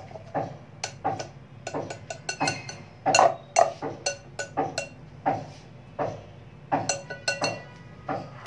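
Metal wire whisk stirring a thick melted-chocolate mixture in a glass bowl, clinking irregularly against the glass about once or twice a second. The louder strikes leave the glass ringing briefly.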